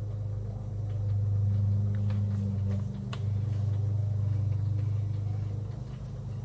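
Steady low hum, a little louder through the middle, with a few faint clicks of someone chewing a bite of breaded, air-fried mozzarella stick.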